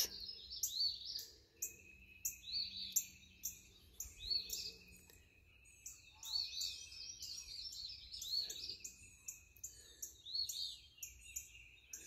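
Birds chirping: a run of short, high, downward-sweeping chirps, a few a second, with a faint steady high tone beneath them for most of the time.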